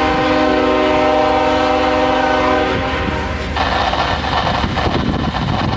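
Locomotive air horn sounding a steady chord of several notes, cutting off about two and a half seconds in. It is followed by the rattling noise of the passing train on the rails.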